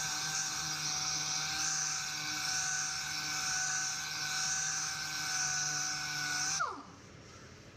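Power sander running steadily on the repaired plastic wheel-arch cladding with a high whine and hiss, then switched off about six and a half seconds in, its motor winding down quickly in pitch.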